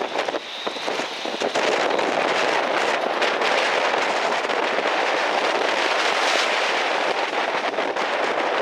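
Strong wind blowing on the microphone together with breaking surf, a steady loud rushing noise with some crackle in the first couple of seconds.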